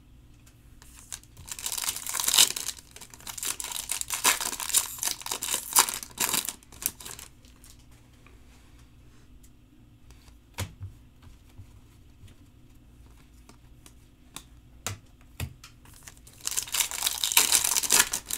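Foil wrapper of a Bowman Chrome trading-card pack being torn open and crinkled in two bouts: a long one starting about a second in, and a shorter one near the end. A few light clicks come in the quieter stretch between them.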